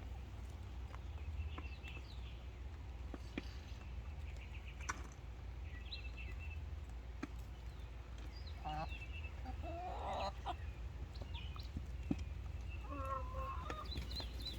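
Chickens clucking and calling at intervals, busier around the middle and near the end, with a few sharp clicks and a steady low rumble underneath.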